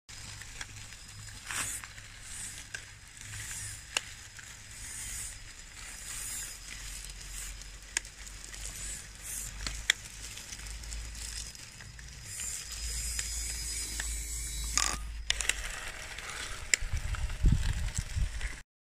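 Gravel crunching and small stones clicking as a radio-controlled model dozer on 3D-printed plastic track chains pushes into a gravel pile with its blade, over a low steady hum. The crunching gets louder near the end.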